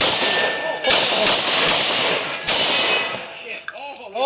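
Rapid shotgun fire: about five shots at an uneven, fast pace, with steel targets clanging as they are hit and a brief ringing tone near the end.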